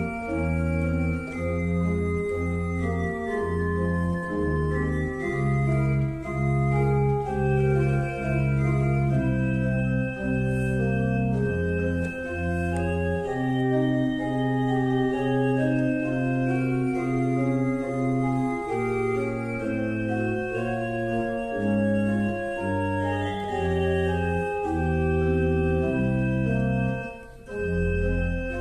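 Organ music: held chords over a slowly stepping bass line, with a brief drop near the end.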